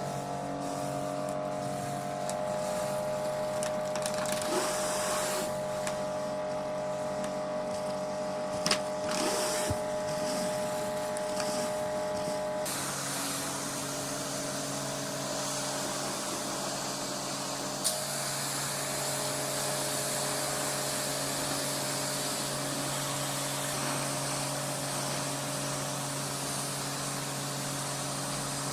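Pressure washer running steadily, its motor and pump droning under the hiss of the water jet on a concrete path; the hiss turns steady about halfway through, with a couple of brief sharp clicks.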